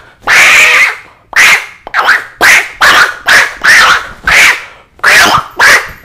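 A man imitating with his voice the angry screeching of a fighting monkey: a loud run of about ten short, harsh screeches, the first one the longest.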